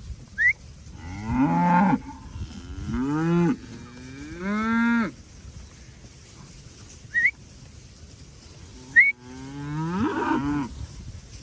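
Cattle mooing: four long, drawn-out moos, three close together and one more near the end, as the herd is called and moved to a new paddock.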